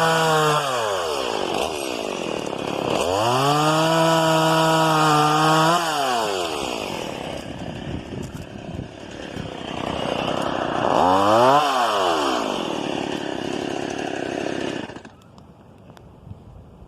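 Chainsaw engine revved to full throttle and dropped back to idle twice, with a short quick rev about eleven seconds in; the engine sound cuts off near the end.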